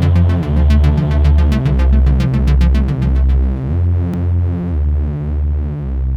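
Electronic background music with a synthesizer and a steady, pulsing bass beat; the high ticking percussion drops out about halfway through.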